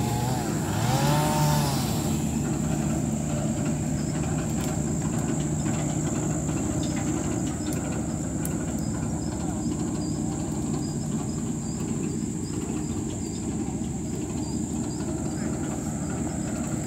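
Kubota GL46 tractor's diesel engine running steadily under load as it climbs a slippery slope with a trailer of wood. A brief voice sounds about a second in. A steady high-pitched whine and faint chirps sit in the background.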